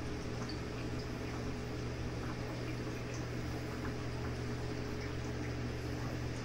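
Steady low hum of running aquarium equipment with water bubbling and trickling, and faint small ticks scattered through it.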